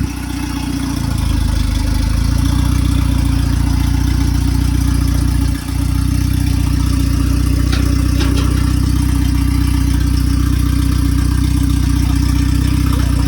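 Car engine idling steadily, with a brief dip about five and a half seconds in.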